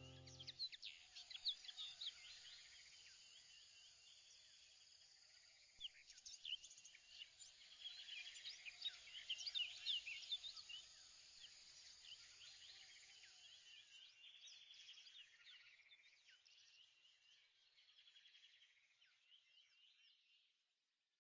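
Faint bird chirps over a steady insect-like trill, busiest in the middle and fading away near the end.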